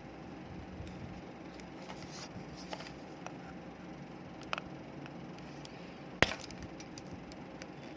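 Plastic clicks and knocks from a Dell computer mouse being handled and pried open, with one sharp crack about six seconds in.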